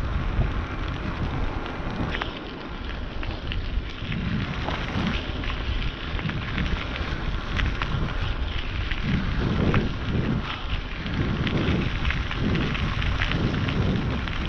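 Wind buffeting the microphone: a steady, uneven low rumble with scattered crackles.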